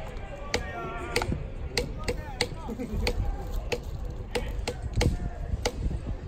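Rhythmic cheering in the ballpark stands: sharp claps or clacks on a steady beat of about one and a half a second, with voices.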